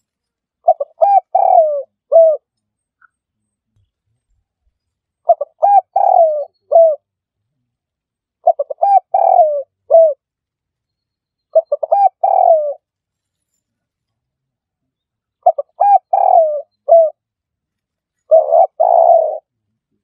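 Spotted dove cooing: six phrases, one every three to four seconds, each a few quick short notes followed by longer, lower coos.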